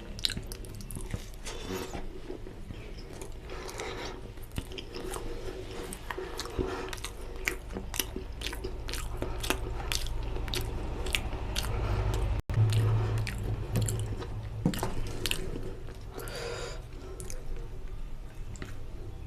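Close-miked mouth sounds of a person chewing puri and mutton lung and intestine curry: many quick wet clicks and smacks, with a very brief dropout about twelve seconds in.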